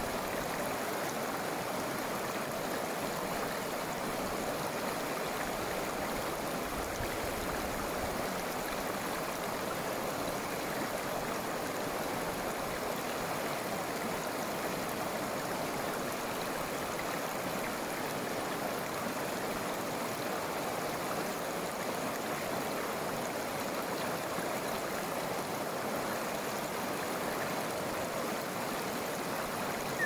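River water rushing steadily, an even unbroken hiss.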